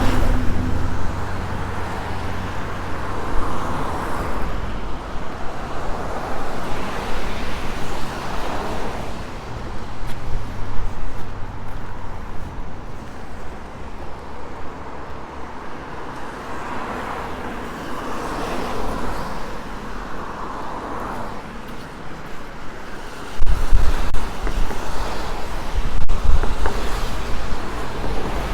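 Cars passing one after another on a wet, slushy street, their tyres hissing through the water, with a deep rumble growing louder about three-quarters of the way through.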